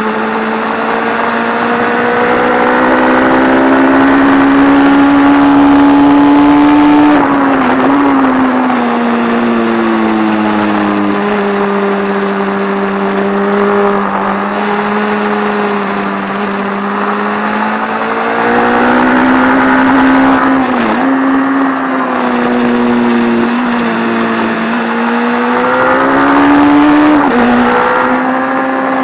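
1170 cc P&M Kawasaki air-cooled inline-four racing engine pulling hard at high revs under full throttle, heard onboard over wind rush. Its note climbs for the first several seconds, then drops back about seven seconds in and sinks slowly for ten seconds. It climbs again with brief dips around 21 and 27 seconds in, where the rider shifts gear.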